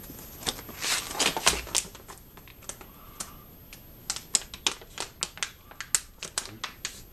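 Mylar food-storage bag crinkling as it is lifted and handled, a run of sharp irregular crackles that come thicker in the second half.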